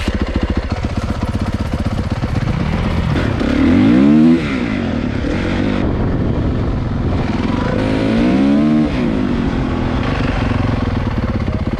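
Four-stroke 450 dirt bike engine heard from the rider's seat, pulling away and running along. It revs up hard twice, about four seconds in and again near nine seconds, the pitch climbing and then dropping each time.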